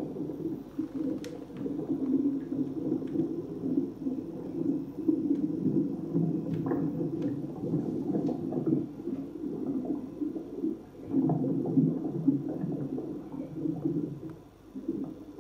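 Low, uneven gurgling rumble of aquarium water circulation, with a few faint clicks.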